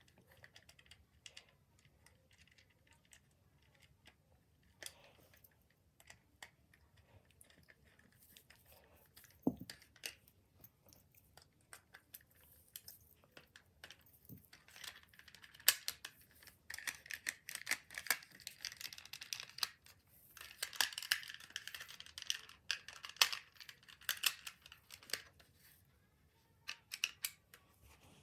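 Small clicks and rustles from a plastic toy wing pack being handled and fitted back together. They are sparse at first and come thick and fast in the second half, with one soft knock about a third of the way in.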